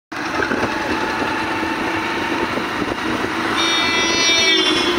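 Single-cylinder Hero commuter motorcycle running at road speed, its steady engine and wind and road noise heard from the rider's seat. A brief high-pitched tone sounds for about a second near the end.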